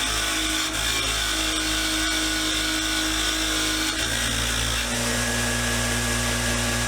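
An electric power tool's motor running steadily. Its pitch drops slightly about four seconds in.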